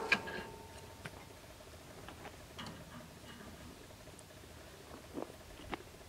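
A few faint, scattered taps and clicks, about half a dozen over several seconds.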